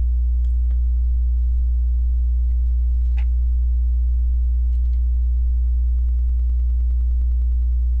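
Steady electrical hum, a low tone with a row of overtones, that stays the same throughout, with a few faint clicks of Lego pieces being handled.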